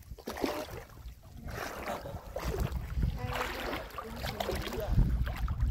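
Lake water lapping and sloshing close to the microphone at the water surface, in irregular bursts of splashy hiss, over a steady low rumble of wind buffeting the microphone.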